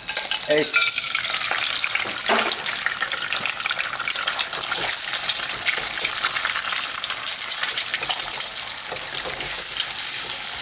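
Eggs frying in hot oil in a nonstick wok, a steady crackling sizzle, while a spatula and ladle stir and scrape them around the pan. There are two sharp knocks in the first few seconds.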